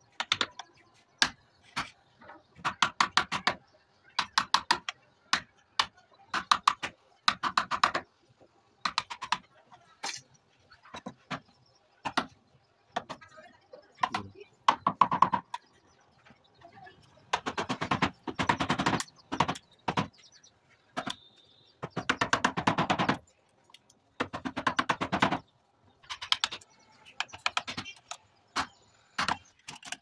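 Repeated short runs of rapid clicking and tapping, each a second or so long, from hand-tool work on a door lock being fitted.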